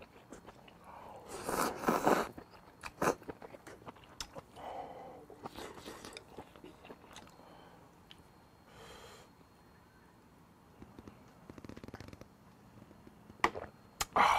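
Close-miked eating of beef and vegetables in hot broth: slurping, chewing and swallowing in irregular bursts, the loudest about two seconds in and again near the end, with a few sharp clicks of a ladle and chopsticks on the dishes.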